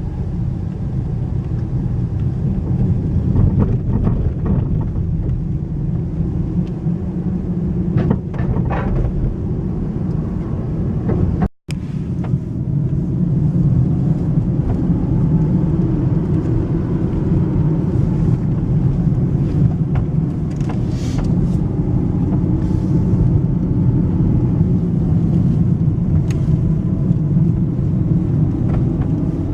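Car driving, a steady low engine and road rumble that cuts out for a moment partway through, then carries on.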